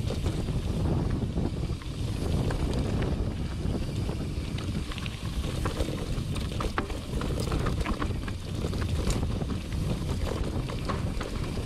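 Wind buffeting the camera microphone on a fast mountain-bike descent, over the tyres rolling across loose gravel and stones. Sharp clicks and rattles from stones and the bike come more often in the second half.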